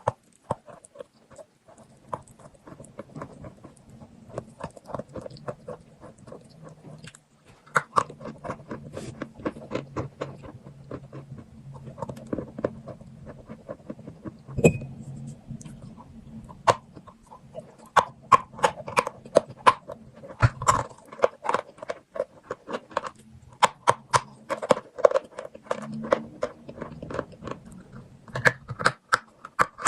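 Chalk being bitten and chewed close to the microphone: many sharp, dry crunches and crackles in quick irregular clusters, with a few short pauses.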